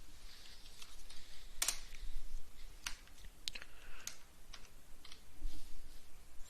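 Computer keyboard keystrokes: a handful of separate, sharp key clicks at irregular intervals.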